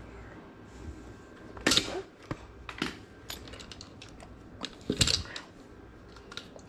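Clinks, knocks and clatter of hand tools and metal motor parts being picked up and handled on the floor, with two louder knocks, about two seconds in and about five seconds in.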